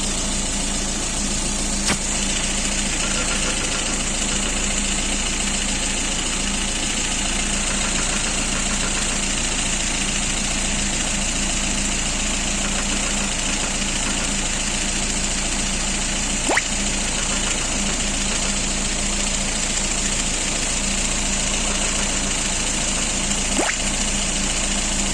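Lada Kalina's engine idling steadily. A few sharp knocks stand out about 2 s in, about two-thirds of the way through and near the end: the tapping, cyclic knock whose source the owner cannot find.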